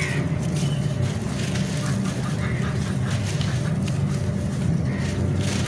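Wet charcoal clay lumps squelching and crumbling under a hand in a basin of water, with small crackles as pieces break off. A steady low rumble runs underneath and is the loudest part.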